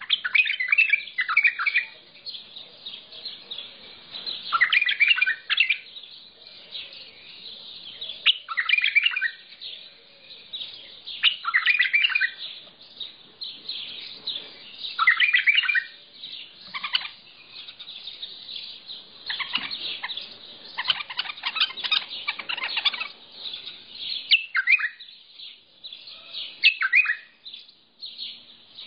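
Mandali bulbul (the Iraqi white-eared bulbul) singing: short, bright warbled phrases repeated about every three to four seconds, with a longer run of song about two-thirds of the way through, over a constant higher twittering.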